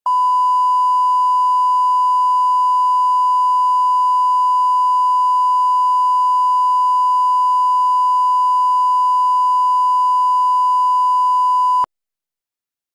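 A 1 kHz line-up reference tone of the kind that goes with colour bars at the head of a tape. It is one steady pure beep that holds for about twelve seconds and then cuts off suddenly.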